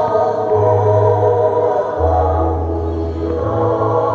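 Background music of slow, held chords over a deep bass note that changes every second or two.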